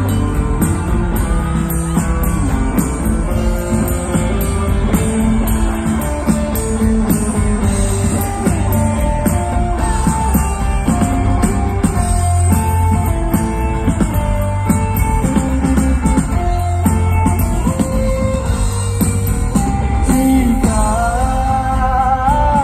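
Live rock band playing through a stage sound system and heard from the crowd: guitars, a heavy bass end and a melodic vocal line over the top.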